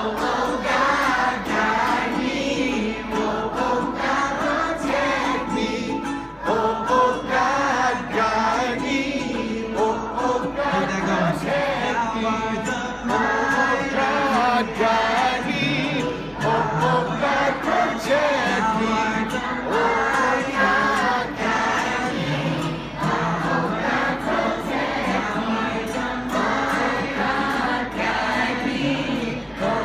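Children's choir singing a song together, accompanied by a strummed ukulele.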